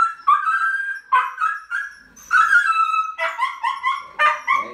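Siberian husky puppy yelping and crying in pain, about six high-pitched cries in quick succession, as the microchip needle goes in.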